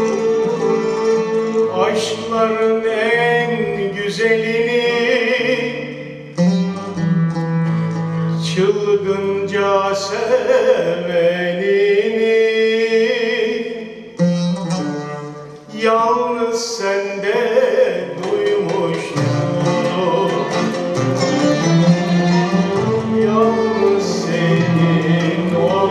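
Male solo voice singing a Turkish classical song, accompanied by a traditional ensemble of bowed and plucked strings, clarinet and frame drum. The phrases rise and fall, with short breaks between them about six seconds in and again around fourteen to sixteen seconds.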